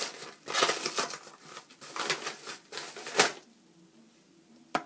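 A mailed parcel's wrapping being torn and rustled open by hand: a run of irregular rips and crinkles with a sharper snap about three seconds in. Then it goes quiet apart from one short click near the end.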